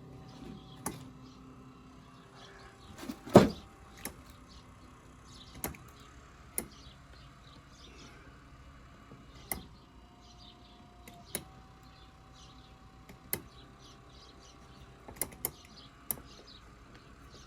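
Minn Kota 30-pound-thrust electric trolling motor running on its first test after being wired to the battery, a faint steady hum and whine that sounds really slow. About a dozen sharp clicks and knocks come through it, the loudest about three seconds in.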